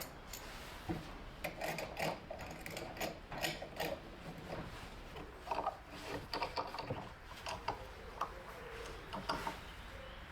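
Irregular clicks, light knocks and scraping, the sound of hands working with tools and wood, with a few sharper knocks scattered through.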